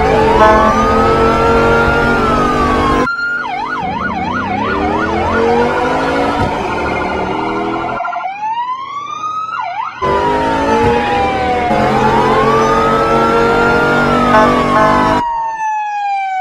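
Police siren wailing in slow rising and falling sweeps, switching to a fast warbling yelp about three seconds in, then back to slow wails. The sound cuts off and restarts abruptly several times.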